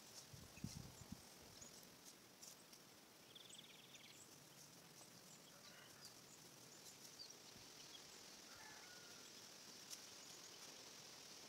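Near silence: faint outdoor field ambience, a steady high insect hiss with a few short bird chirps, and a few soft low bumps in the first second.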